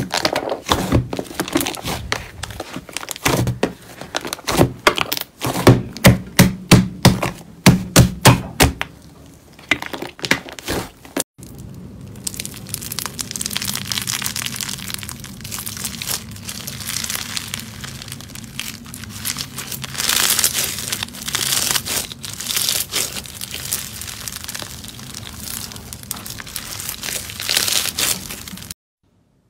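Hands pressing and kneading a large mass of thick slime in a plastic basin, a string of loud squishing presses that settle into a regular beat of about two a second. Then, after a short break, crunchy slime packed with small beads being stretched and squeezed, giving a dense crisp crackling.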